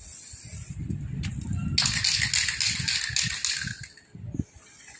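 Packing tape ripping loose from a cardboard box as its lid is pulled open, a crackling screech of about two seconds starting near the two-second mark, over low cardboard handling knocks and rustle.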